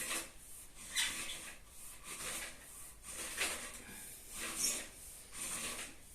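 Irregular rubbing and scraping strokes, about one a second, like something being handled or dragged against a hard surface.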